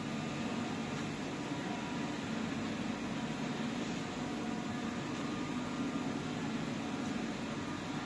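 Steady drone of a PET bottle recycling and washing line running, with its conveyors and machinery humming evenly and no distinct knocks.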